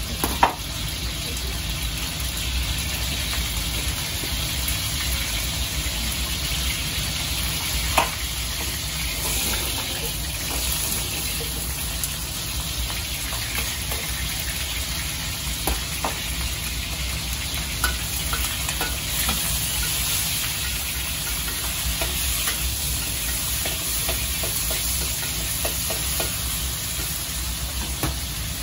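Meat sizzling in a carbon-steel wok as it is stir-fried with a metal ladle, which knocks sharply against the wok a few times. A steady low rumble runs underneath.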